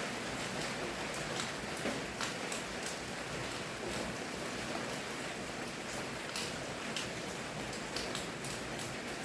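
Steady rainfall: an even hiss of rain with many separate drops pattering and ticking irregularly on a surface.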